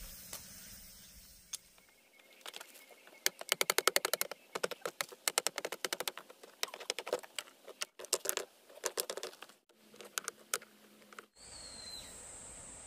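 Rapid runs of light, sharp taps, many a second, made while working at a concrete-block stove base; they stop abruptly near the end. After them comes a steady high hiss with a short bird chirp.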